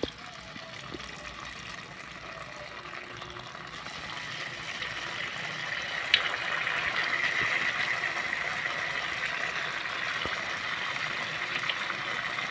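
Tofu pieces in tapioca-starch batter sizzling as they deep-fry in hot oil in a wok. The sizzle grows louder over the first several seconds as more pieces go in, then holds steady, with a sharp pop about six seconds in.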